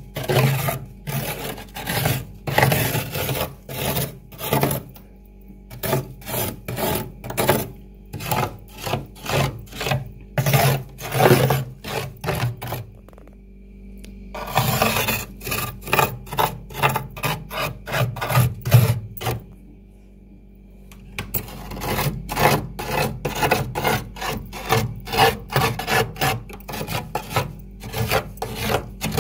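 Metal spoon scraping built-up frost off the walls of a frosted freezer compartment in quick repeated rasping strokes, about two to three a second, with a few short pauses.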